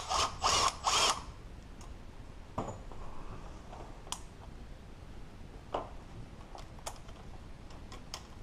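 A cordless power tool runs in three short bursts in about the first second, backing out the bolts on a high-pressure fuel line. Scattered light metallic clicks and clinks follow as the parts are handled.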